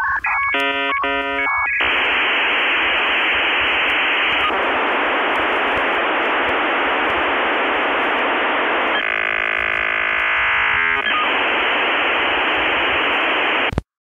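Loud electronic static hiss that sounds as if it comes over a telephone line, opening with a quick run of beeping tones and broken by a stretch of warbling tones about nine seconds in; it cuts off abruptly just before the end.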